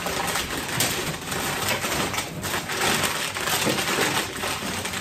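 White packing paper crinkling and rustling continuously as wrapped figurines are pulled out of a cardboard box and unwrapped.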